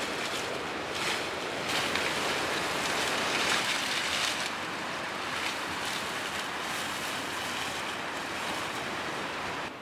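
Steady rushing outdoor noise, like wind over the microphone or distant flowing water. Over it come bursts of rustling and crunching from dry grass and leaves, as someone walks through the hillside grass carrying cut leafy branches. The rustling is strongest in the first half.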